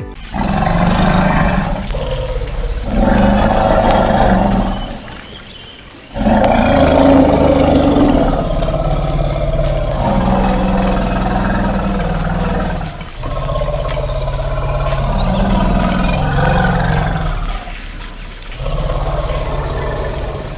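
Elephant calling: a run of long, loud, rough low calls, each lasting a few seconds, with short breaks between them.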